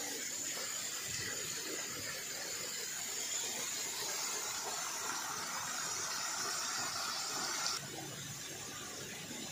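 A steady spraying hiss that cuts off suddenly near the end.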